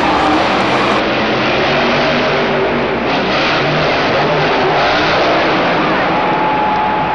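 Monster truck engine revving hard, a loud, dense, continuous roar.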